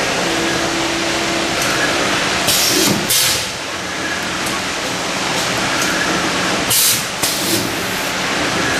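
CNC vertical machining center milling a metal housing under flood coolant: a steady hiss of coolant spray over the machine's running noise. It is broken twice by a brief, louder burst of hiss, and a faint steady tone sounds for about a second at the start.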